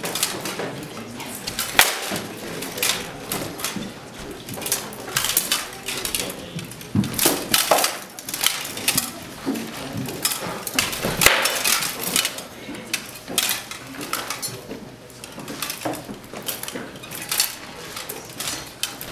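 Armoured combat with rattan swords: irregular sharp clacks and knocks of sword blows landing on steel helmets, plate armour and a wooden shield, with the hardest hits about two seconds in and about eleven seconds in.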